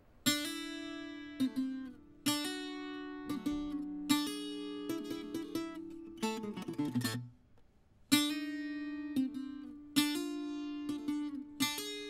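Viola caipira, the Brazilian ten-string guitar, played solo: plucked chords struck and left to ring and fade, with a short pause about seven seconds in before a loud chord opens the next phrase.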